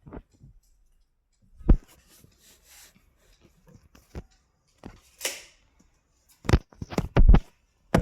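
Scattered knocks and handling noises: a sharp knock about two seconds in, a few lighter ones, a short rustle or scrape past the middle, and a quick run of knocks near the end.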